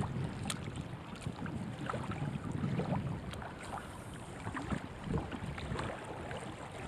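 Wind buffeting the microphone in a low, uneven rumble, with scattered faint clicks and ticks.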